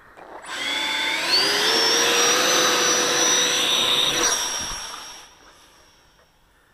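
64mm 12-blade electric ducted fan of an RC jet, on a 3500 kV brushless motor, whining at high throttle. Its pitch rises over the first second and a half, holds steady, drops sharply about four seconds in, then fades as the jet flies away.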